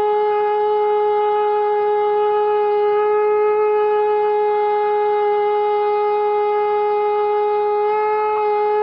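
Conch shell (shankh) blown in one long unbroken note at a steady pitch, cut off abruptly at the end.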